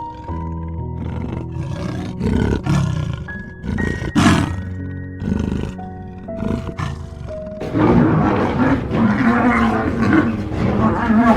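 A big cat growling and roaring in short, repeated bursts over soft piano music. From about eight seconds in, the growling turns denser and continuous.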